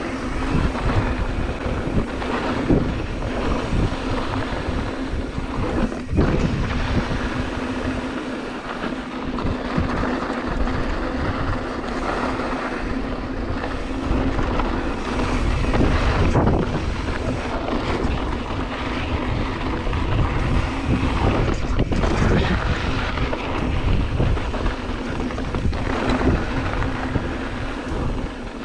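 Wind buffeting a GoPro microphone as a 2016 Ibis Mojo HD3 mountain bike rolls fast down dirt singletrack. The tyres make a steady rushing noise, with occasional sharp knocks and rattles from the bike over bumps.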